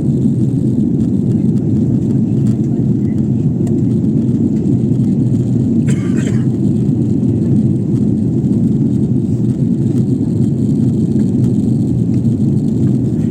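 Steady airliner cabin noise in flight: the even roar of jet engines and airflow, with a short hiss about six seconds in.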